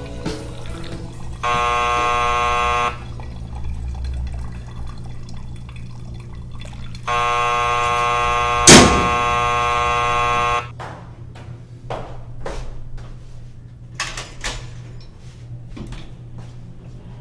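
A doorbell buzzer sounds twice: a short buzz of about a second and a half, then a longer one of about three and a half seconds. A single sharp knock during the second buzz is the loudest sound. A few light clicks and knocks follow.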